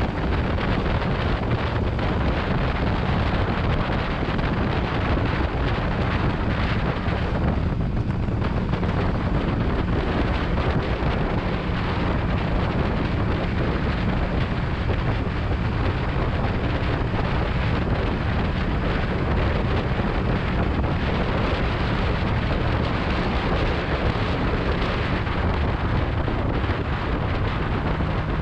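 Motorcycle on the move: a steady low engine drone half buried under heavy wind rush on the microphone.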